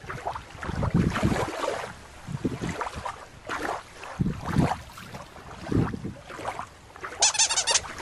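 Wind buffeting the microphone outdoors, with irregular swishes and rumbles. Near the end there is a brief burst of rapid high ticking.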